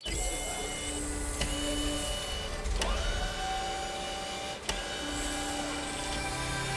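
Mechanical sound effects for an animated logo sequence: held motor and servo whines over a low rumble, a rising whine about three seconds in, and a few sharp clicks of gears engaging.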